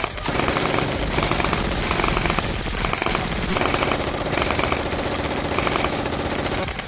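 Airsoft electric guns firing sustained full-auto, a continuous rapid rattle of shots with only a brief dip just after the start.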